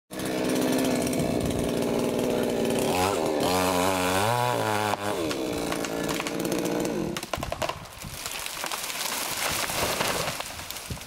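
Two-stroke chainsaw running, its engine speed rising and falling several times about three to five seconds in. After about seven seconds it runs quieter.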